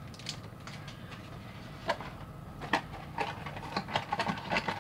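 Cardboard blind box handled and its tuck flap pried open by hand: a couple of sharp taps and clicks, then a quicker run of small clicks and paper rustles near the end.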